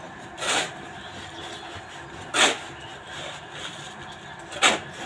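Three short, sharp scrapes about two seconds apart, over a steady low background hum: strokes of a tool working through a hand-mixed concrete of cement and crushed brick chips.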